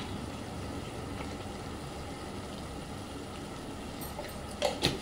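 Mutton and masala sizzling steadily in a cooking pot, with two short knocks near the end.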